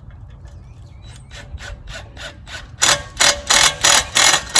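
Rhythmic strokes of a hand tool working on wood or a fastener, about three a second. They are faint at first and become much louder about three seconds in.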